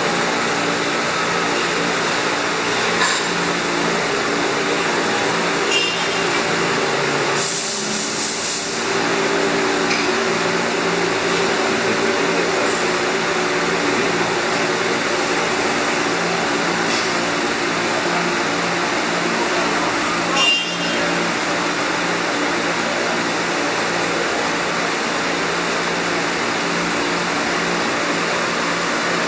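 Steady mechanical hum of a powered-up Haas TM-2 CNC toolroom mill, with a few light clicks, the loudest about twenty seconds in, and a brief hiss about eight seconds in.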